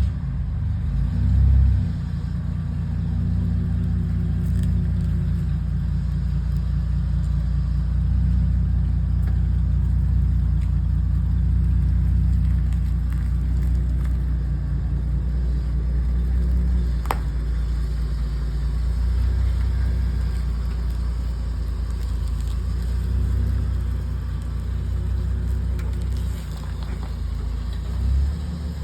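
Car engine running steadily at low revs, briefly swelling about a second in and again near the end, with a single sharp click about seventeen seconds in.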